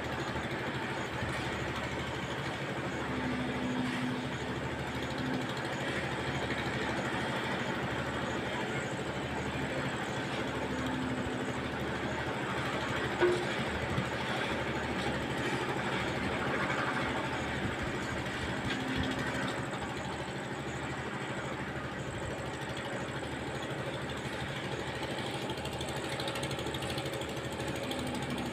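Engine of a site concrete mixer running steadily while concrete is mixed for a roof-slab pour, with a brief knock about 13 seconds in.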